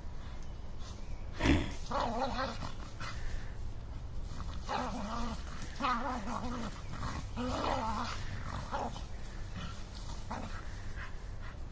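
Two terriers, a soft-coated wheaten and a Kerry blue, play-fighting, with a string of short wavering growls. There is one sharp loud sound about a second and a half in, and dry leaves crackle underneath.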